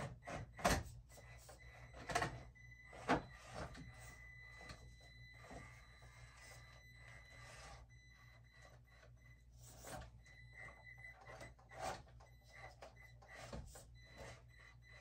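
Traxxas TRX-4M mini crawler's small brushed motor and gears giving a thin high whine as it crawls, with knocks, clicks and scrapes of its tires and chassis on the course obstacles, the loudest knocks in the first few seconds. The motor is prone to stalling at low speed.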